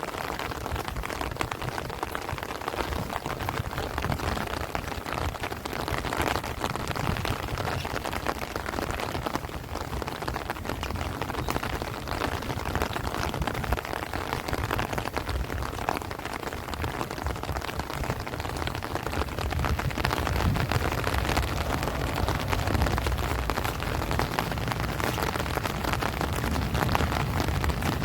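Heavy rain pattering steadily on rice leaves and trees, a dense hiss of countless drops. About two-thirds of the way in, wind rises and adds a low rumble.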